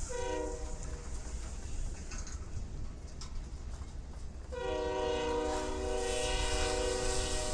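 Locomotive air horn sounding a chord: a short blast at the start, then a long blast from about four and a half seconds in. Under it, a steady low rumble from the slowly passing loaded ballast hopper cars.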